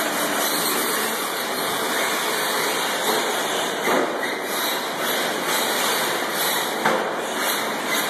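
4x4 short-course RC trucks racing on an indoor dirt track make a steady noisy hiss of motors and tyres in a large hall. A couple of sharp knocks come about four seconds and seven seconds in.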